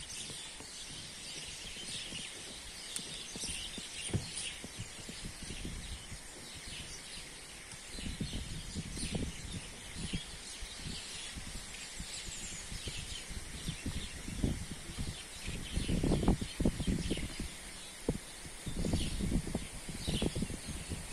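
Many small birds chirping in the woodland, with irregular low crackles and rustles that grow louder over the second half and are loudest near the end.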